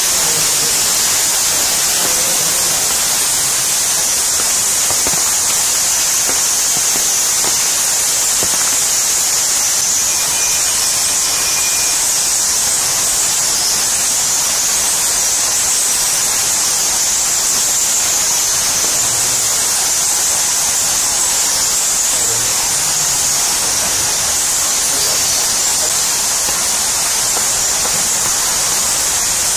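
Stream and small waterfall rushing steadily: a constant, even hiss of falling and flowing water that does not change.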